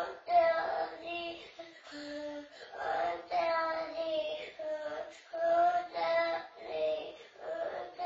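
A toddler's voice in a string of long, high, held notes, roughly one a second, each on a fairly steady pitch.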